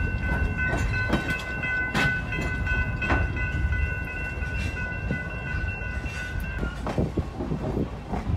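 A passenger train's horn sounds one long, steady chord that cuts off about seven seconds in, over the low rumble of the moving cars and the clack of wheels over rail joints.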